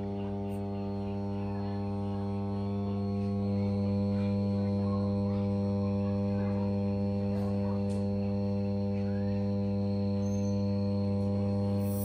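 Restored refrigerator compressor running under power with a steady electrical hum, showing it works again.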